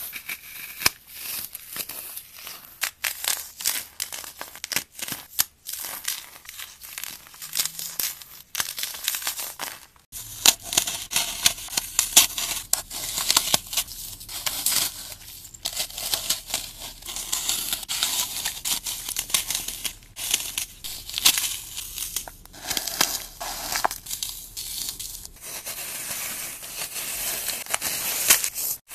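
Dry, paste-coated floral foam being crumbled and crushed by hand: dense, irregular crunching and crackling. The sound changes abruptly about ten seconds in and again near the end as a new piece is broken.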